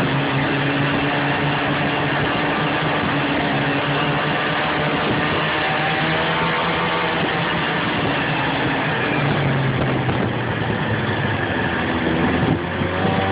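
Snowmobile engine running steadily while riding along a trail, with a dense hiss of track and wind noise underneath. The engine note shifts about nine seconds in, dips briefly near the end, then rises again as it speeds up.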